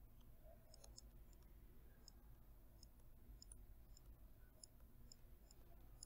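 Near silence with faint, light, high-pitched ticks at irregular intervals: a stylus tapping and moving on a tablet screen while words are handwritten.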